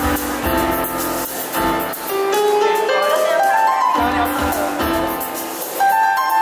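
Electronic keyboard playing a tune: a melody of held notes over bass and chord accompaniment, with a rising run of notes in the middle.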